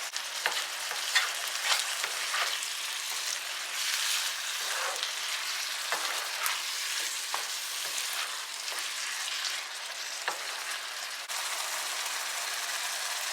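Tomato stew base frying and sizzling in oil in a pot while it is stirred, with a spoon clicking and scraping against the pot now and then; near the end only the steady sizzle remains.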